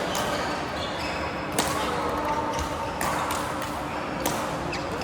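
Badminton rally: rackets strike the shuttlecock three times, roughly a second and a half apart, over background chatter in a sports hall.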